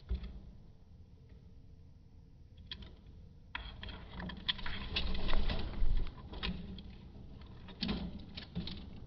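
Budgerigars moving about in their cage, a burst of scratchy rustling and clicking that swells in the middle and comes back briefly near the end.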